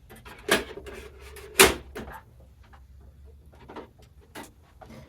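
Hands working on a desktop computer to pull its RAM: a sharp knock about half a second in, a short scraping slide, then a loud clack just before two seconds, followed by scattered lighter clicks and taps of parts being handled.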